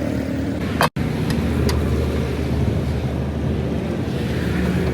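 An engine running steadily with a low rumble, broken by a momentary dropout about a second in.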